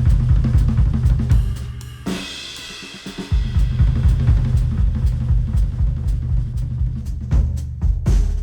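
Instrumental music with a heavy drum beat and deep bass, played through open-back Sennheiser headphones and picked up by microphones. About two seconds in the beat and bass drop out under a bright cymbal-like swell, then return a little over three seconds in.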